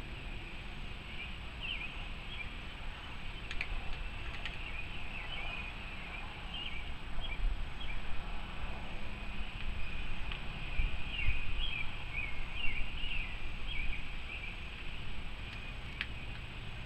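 Small birds chirping and chattering continuously, over a low outdoor rumble that swells in the middle and a few faint clicks.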